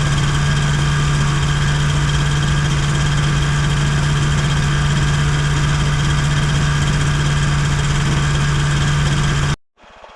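Challenger II ultralight's two-stroke engine idling steadily on the ground, freshly started. It cuts off suddenly near the end.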